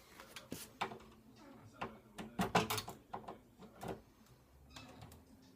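Doorknob hardware clicking and knocking as it is handled and screwed back onto the door. The clicks come irregularly, with a cluster of louder ones about halfway through.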